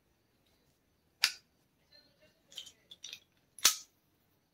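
Sharp metal clicks of pliers working brass pipe fittings: two loud snaps, about a second in and again near the end, with lighter clicks and scrapes of metal between them.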